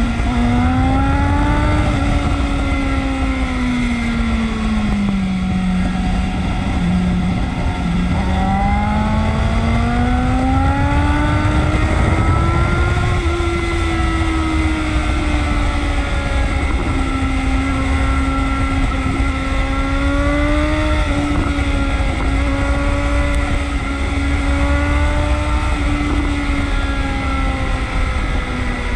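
Motorcycle engine running under way, its note dipping about five seconds in, climbing to a peak around the middle, then holding fairly steady, over a constant low wind rumble on the microphone.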